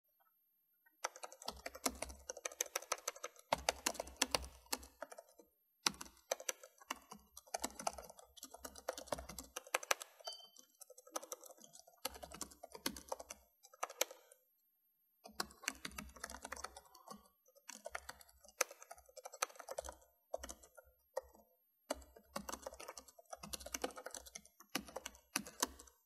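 Typing on a computer keyboard: quick, irregular key clicks in runs of a few seconds, broken by short pauses, starting about a second in.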